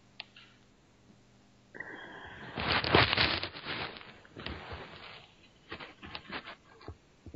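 Irregular rustling and scraping of someone moving, in uneven bursts. It starts about two seconds in after a quiet start and is loudest about a second later.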